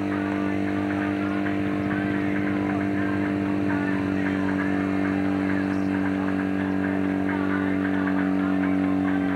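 Fire pump's engine running steadily at a constant speed, a continuous droning hum with faint voices in the background.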